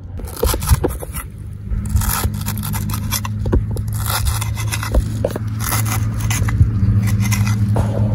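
Irregular scraping and clicking as objects are handled, over a steady low hum that starts about a second in and grows louder near the end.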